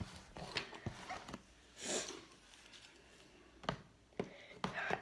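Scattered light clicks and knocks of objects being handled, with a brief rustle about two seconds in.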